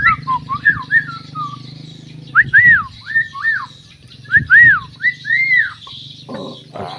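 Tame Javan myna whistling in three short runs of arching, rise-and-fall whistled notes, mimicking human whistling. A couple of short rasping sounds follow near the end.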